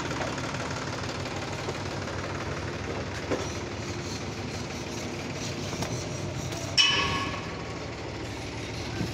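A machine runs steadily with an engine-like hum. About seven seconds in comes a single sharp metal clang that rings on briefly.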